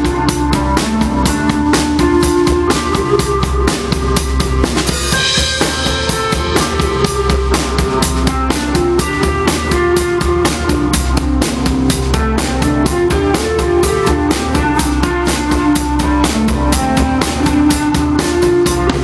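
Live band music driven by a drum kit keeping a fast, steady beat over a moving bass line, with a cymbal crash about five seconds in.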